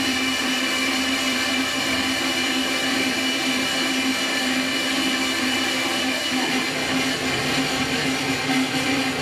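Harsh noise music: a steady, dense wall of electronic noise with a low tone and a few high tones held through it.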